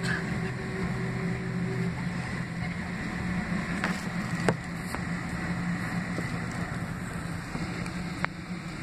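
Cabin noise of a Boeing 767-300ER taxiing: a steady hum and rush from its GE CF6-80C2B6 engines at taxi power and the cabin air, heard from inside the cabin. A few brief light knocks come at about four seconds, four and a half seconds, and again near the end.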